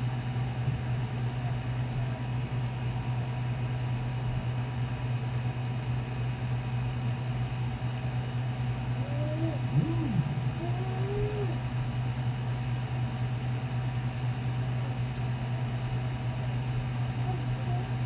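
Steady low hum, unchanging throughout, with a few brief faint pitched glides about ten seconds in.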